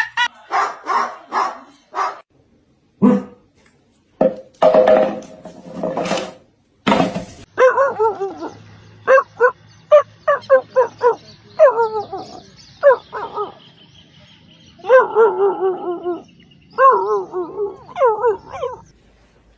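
A dog giving a long string of short, pitched barks and yelps that bend up and down in pitch, starting about eight seconds in. Before that there are a few short noisy bursts.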